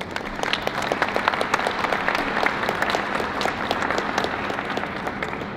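Audience applauding: many hands clapping at once, thinning toward the end.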